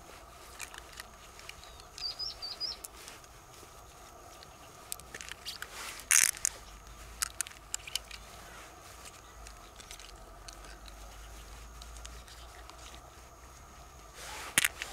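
Small clicks and rustles of rubber-gloved hands working pearls out of a freshwater mussel's flesh and handling its shell, with a louder sharp knock about six seconds in and another near the end. A bird chirps briefly about two seconds in.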